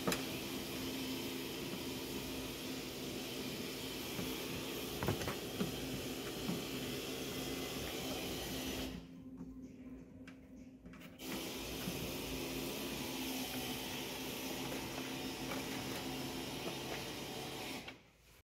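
Steady machine-like hum and hiss with a few faint clicks about five to six and a half seconds in, from hands handling the tailgate trim and cable. The hum drops away for about two seconds around nine seconds in and again near the end.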